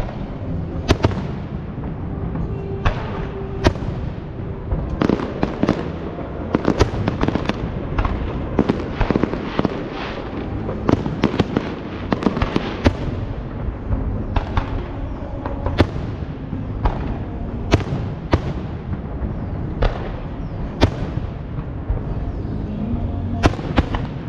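Aerial fireworks display: shells bursting one after another over a steady low rumble, the bangs coming thickest in a rapid cluster through the middle and more spaced out later.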